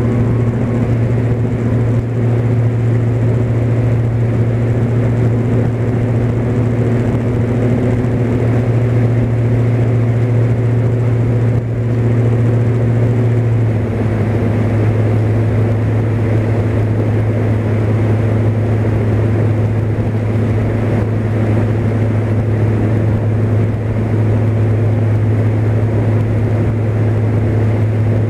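Cessna 172's piston engine and propeller running at high power in the climb after takeoff, a loud steady drone. About halfway through the pitch drops slightly as the engine speed is eased back a little.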